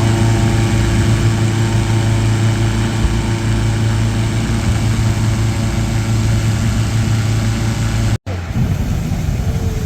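An engine running steadily at an even speed, with a constant low hum, briefly cut off about eight seconds in.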